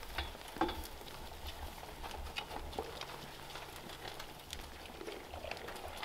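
Goats feeding at a low ground trough in their bedding: scattered small clicks, crunching and rustling, over a low rumble.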